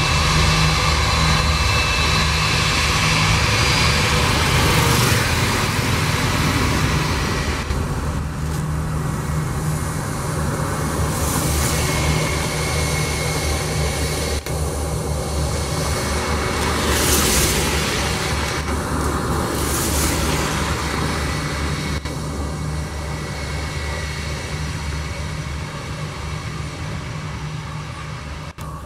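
Airbus A319's jet engines running at taxi power as the airliner taxis past: a steady whine over a low rumble, with a few brief rushing surges, fading gradually in the last third.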